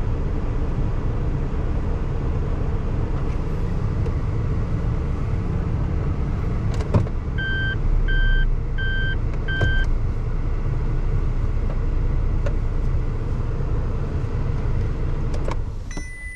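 Steady low engine and road rumble of a Suzuki Hustler heard from inside the car. Partway through come four short electronic beeps in a row, and near the end the rumble dies away.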